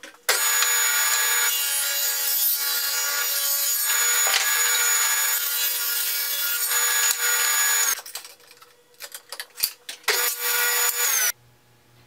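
Table saw ripping a pine strip, the blade cutting steadily for about eight seconds. A short lull with a few small knocks follows, then a second, shorter stretch of saw noise that cuts off suddenly near the end.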